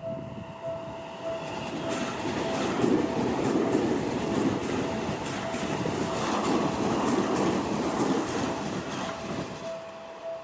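Seibu Ikebukuro Line train passing over a level crossing, its wheels clicking over the rail joints. The crossing's warning bell rings throughout in an evenly repeated tone and stops right at the end.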